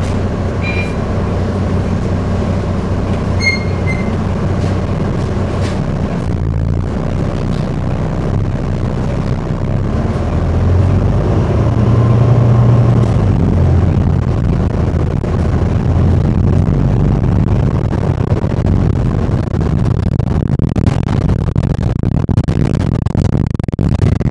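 City bus ride with a steady low drone from the bus's engine and road noise. The engine grows louder and rises in pitch about halfway through as the bus pulls away or speeds up. Two short high tones sound in the first few seconds.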